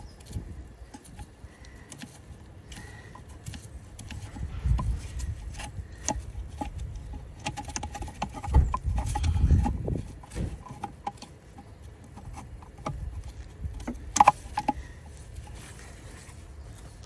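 Small clicks, taps and rubbing of gloved hands handling the metal brake lines and plastic wiring connector of an ABS pump unit, with a few low rumbles and one sharper click about fourteen seconds in.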